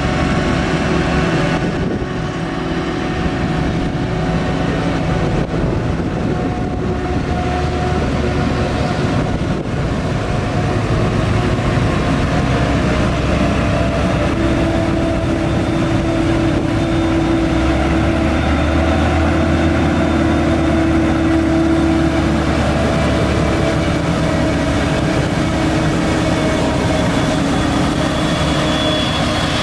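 Steady, loud drone of a Claas Jaguar 950 forage harvester at work chopping maize, mixed with the engine of a Fendt tractor pulling a silage trailer alongside as it passes close by.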